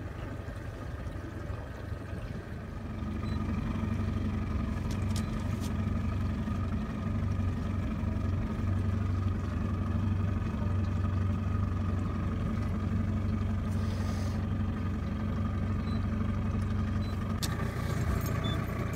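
Motorboat engine running underway, a steady low drone that grows louder about three seconds in.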